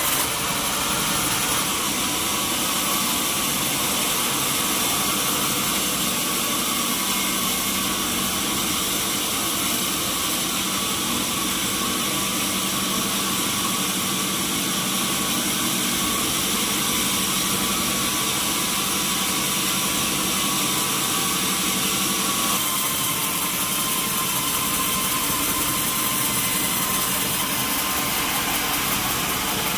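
Sawmill machinery running steadily, a loud mechanical drone with a strong hiss and a few steady tones; its tone shifts slightly about two-thirds of the way through.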